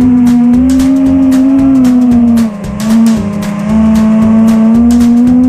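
FPV quadcopter's brushless motors and propellers whining at a steady high pitch, dipping briefly twice as the throttle eases off and comes back. Background music with a steady beat underneath.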